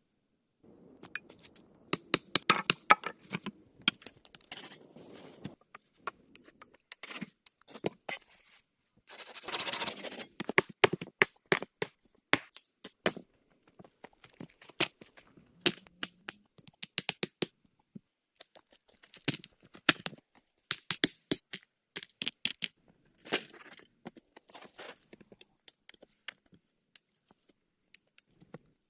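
Hands-on building work: irregular sharp knocks and clicks with stretches of scraping and rustling, thickest about a third of the way in.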